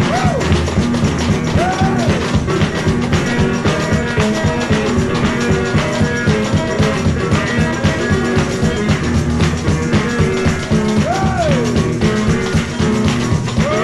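Gospel music without singing: electric guitar over a steady bass-drum beat, with a few notes that slide up and back down.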